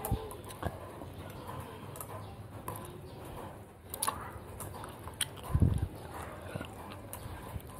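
Someone eating noodle soup: chewing and mouth sounds with scattered short clicks, and a brief low thump about five and a half seconds in.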